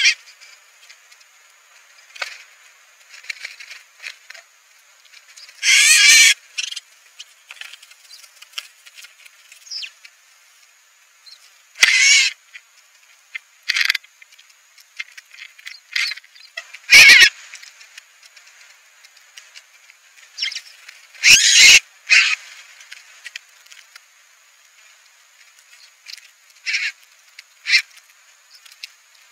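Small birds at a seed feeder, house sparrows and a female northern cardinal: short scattered bursts of chirping and wing flutter every few seconds, with two sharper knocks about halfway through.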